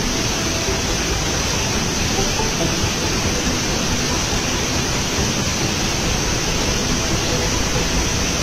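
Water pouring over a concrete weir and rushing down its spillway, a steady, unbroken rush.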